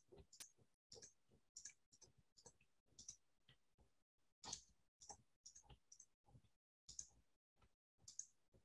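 Faint computer mouse and keyboard clicks, uneven, about two or three a second.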